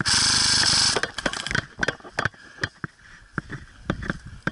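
Airsoft game sounds: a loud rush of noise lasting about a second, then a scatter of sharp clicks and snaps, with a quick cluster near the start, typical of airsoft electric guns firing and BBs striking.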